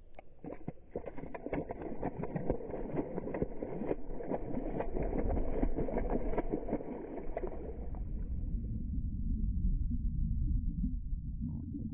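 Black Labrador splashing and thrashing through lake water right at a camera sitting at the waterline, a busy spatter of splashes and sloshing. About eight seconds in, the camera goes under and the sound turns to a muffled underwater rumble with a few bubbling gurgles.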